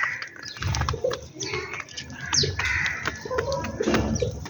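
Sparrows chirping, with a low cooing call about a second in and again near the end.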